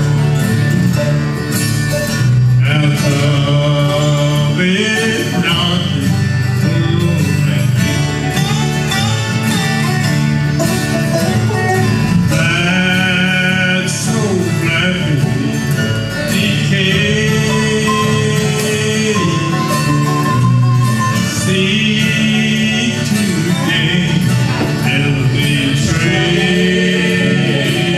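Bluegrass gospel band playing live: acoustic guitars, mandolin and dobro, with singing.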